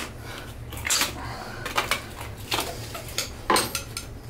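Flat-blade screwdriver scraping old wax and grime out of a toilet flange's bolt slot: a handful of short, irregular metallic scrapes and clicks about a second apart, over a low steady hum.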